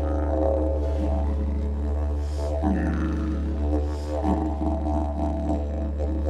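Didgeridoo playing one steady low drone, with the overtones above it changing shape about two and a half seconds in and again about four seconds in.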